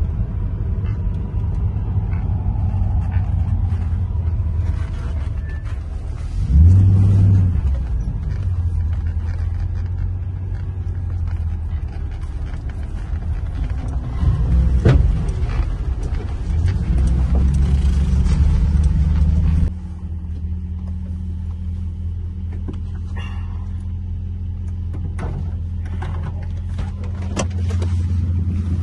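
Old Volga sedan driving, heard from inside the cabin: a steady low engine and road rumble with louder surges about 7 s in and again shortly before the middle, then a sudden drop to a steadier hum, with scattered rattles and clicks near the end.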